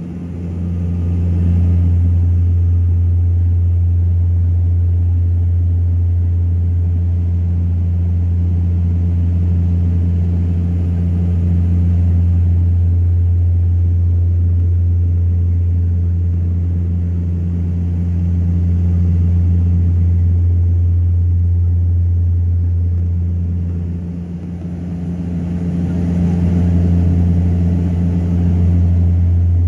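Steady low drone of a passenger plane's engines heard inside the cabin in flight, dipping briefly twice.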